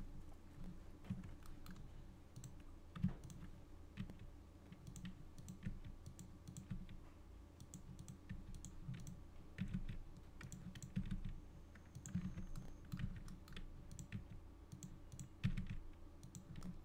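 Faint, irregular clicking of a computer keyboard and mouse, with a steady low hum underneath.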